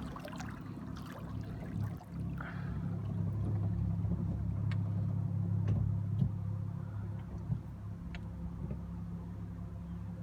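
Electric hire boat's motor humming steadily as the boat turns, growing louder for a few seconds in the middle, with a few faint clicks.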